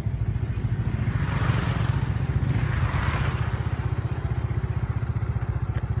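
A nearby engine running at idle: a steady, fast, low pulsing. A rushing hiss swells and fades in the middle.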